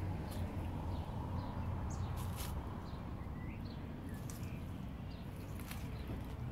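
Outdoor ambience: a steady low rumble, scattered light clicks and a few faint, short bird chirps.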